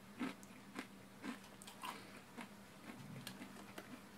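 A person chewing a snack with the mouth closed: faint short crunches about twice a second.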